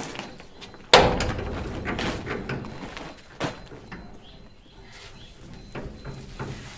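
A sheet-metal compound gate being handled: a loud bang with a short ring about a second in, then smaller knocks and rattling, and another sharp knock a couple of seconds later.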